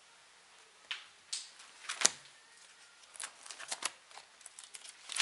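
Plastic water bottle crinkling and crackling in the hand: a scattered run of sharp crackles and clicks, the loudest about two seconds in.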